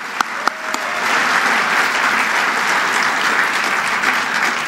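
Audience applauding, a dense even clapping that begins to thin out near the end.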